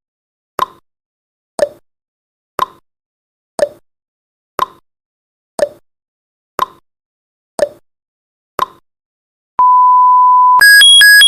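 Countdown timer sound effect: a clock-like tick-tock once a second for the final seconds, then a single long beep as it reaches zero, followed near the end by a loud alarm of two rapidly alternating high-pitched tones.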